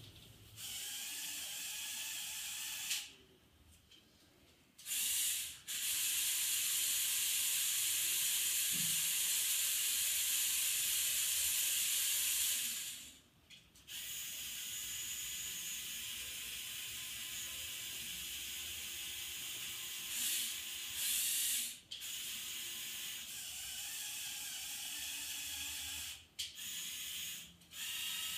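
Electric motors and plastic gear trains of a LEGO Technic model mobile crane whirring as they raise the boom toward vertical. The motors run in stretches that stop and start several times, the loudest stretch lasting about seven seconds.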